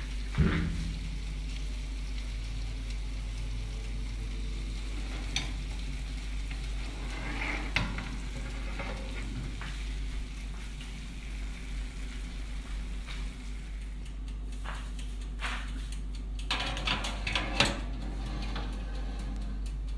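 Chicken drumsticks sizzling in their rendered fat on an oven baking tray, a steady hiss over a low hum. A sharp knock about half a second in, and a run of clicks and knocks of bakeware near the end.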